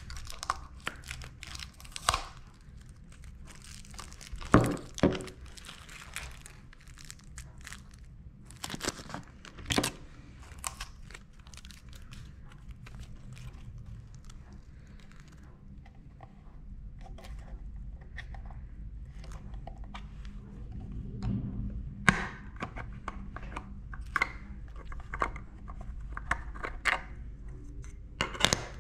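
Plastic packaging crinkling and tearing as a new digital multimeter is unwrapped and handled, with scattered clicks and several sharp knocks of its hard plastic case. Near the end its rear battery compartment cover is pried off with a few clicks.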